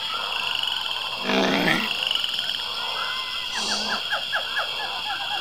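Forest soundscape for a frog-like creature: a steady high insect drone and many short repeated chirps. A louder croaking, growling call comes about a second in, and a shorter croak near four seconds.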